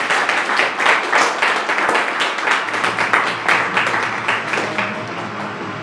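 Audience applauding, a dense patter of many hands clapping that thins out near the end as background music comes in.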